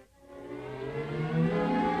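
Orchestral film score: after a brief hush, a held chord swells up, its upper notes sliding slowly upward in pitch as it grows louder.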